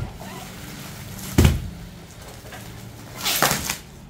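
A single dull thump about a second and a half in as a plastic-wrapped pack of suit fabric is set down on a table, then a short crinkle of plastic wrapping near the end.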